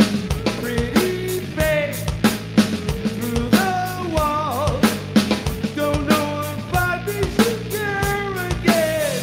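Live two-piece rock band: bass guitar and drum kit playing a hard-driving song, with a sung vocal line over the top that holds a wavering note about halfway through.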